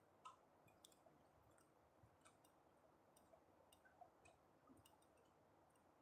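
Near silence: faint room tone with scattered faint clicks.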